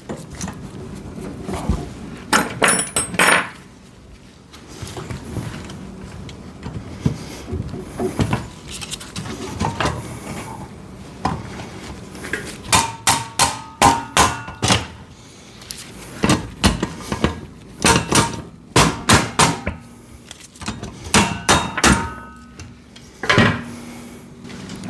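Steel parts of a foldable welding table being handled and fitted together: clusters of knocks and clanks, some ringing briefly. There is a group of knocks a couple of seconds in, then denser runs of clanks past the middle and again near the end.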